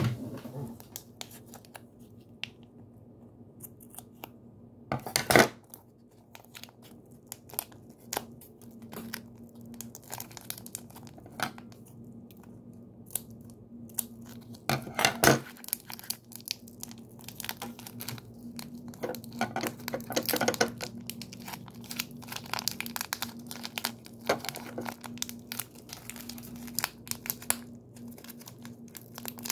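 Clear plastic wrapping crinkling and tearing as it is cut with scissors and pulled open around a block of putty. Scattered crackles run throughout, with louder rustles about five and fifteen seconds in. A faint steady hum sits underneath.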